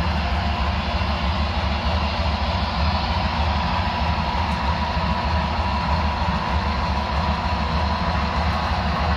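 HO scale model trains running on the layout: a steady rumble and whir of the locomotives on the track, with a faint steady whine.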